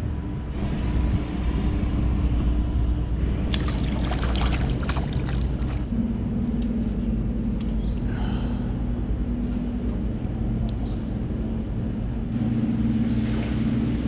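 A boat's motor running with a steady hum and low rumble, its note changing about six seconds in and again near the end, with brief bursts of splashing water.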